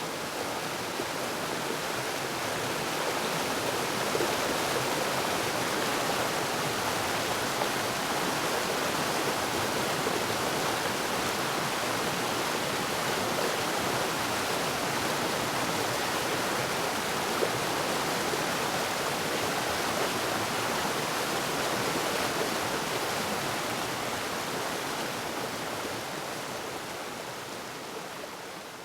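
Waterfall: a steady, even rush of falling water that begins to fade out near the end.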